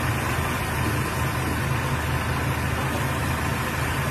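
Heavy diesel engine idling steadily: a constant low hum with a hiss of site noise over it.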